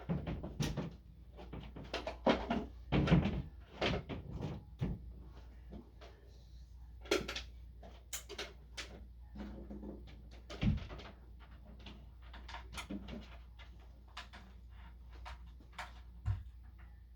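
A run of irregular knocks, clicks and clunks from hard objects being handled, densest in the first five seconds, with a single low thump about eleven seconds in.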